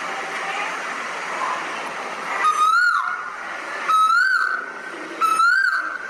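An Asian koel calling: a loud two-part whistled call, a held note that swoops up and then drops, repeated three times about every second and a half from halfway in. Before it there is a steady hiss of background bird chatter.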